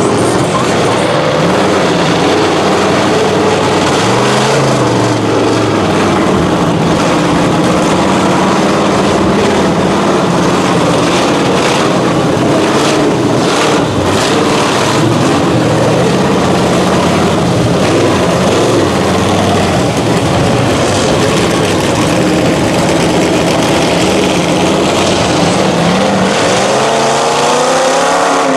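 Engines of lifted mud trucks on oversized tires revving hard as they drive through a shallow mud pit. The engine pitch rises and falls, with a sharp rise in revs about four seconds in and another near the end.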